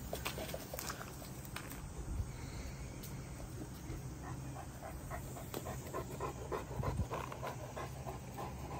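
Great Dane panting, with scattered light scuffs and clicks of paws on dry dirt and leaves.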